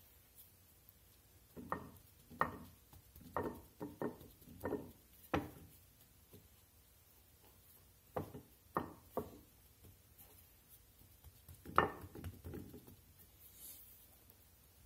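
A hand pats and presses a cube steak down into a bowl of seasoned flour, working the flour into the meat's cracks, with soft thuds. There is a quick run of about seven pats, a pause, three more, and a last, loudest group about twelve seconds in.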